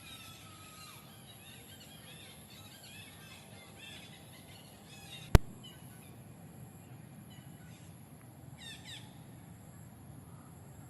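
Faint outdoor ambience with scattered high chirping calls, like small birds, and one sharp click about five seconds in.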